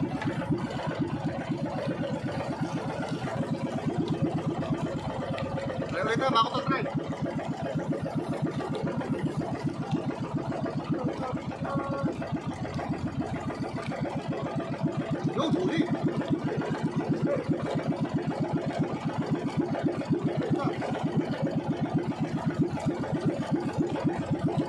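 Small outrigger boat's engine running steadily under way with an even chugging beat, and a short higher-pitched sound about six seconds in.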